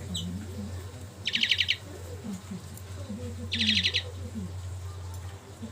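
A songbird gives two short bursts of rapid, repeated chattering notes, about two seconds apart, over a steady low hum.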